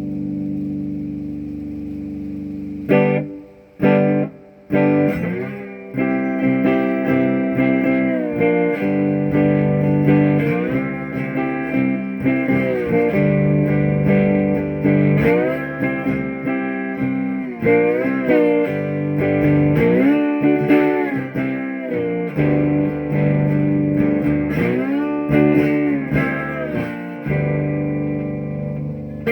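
Electric guitar played through a 1968 Alamo Paragon amplifier: a held chord rings, a few sharp stabbed chords follow, then blues phrases with bent notes.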